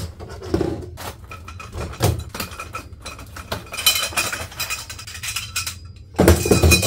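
Metal frame poles and parts of an animatronic prop knocking and clinking as they are handled and set down on a table, along with cardboard packaging being handled; a louder clatter near the end.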